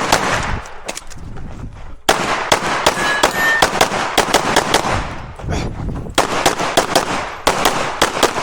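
9mm Glock 17 pistol firing quick strings of shots through a practical-shooting stage, in rapid groups with a pause of over a second near the start and a shorter one past the middle.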